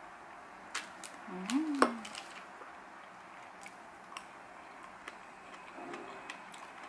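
Metal fork clinking and scraping on a ceramic plate while cutting into a cream cake: a few light clicks in the first two seconds, the loudest near two seconds in, then occasional faint taps.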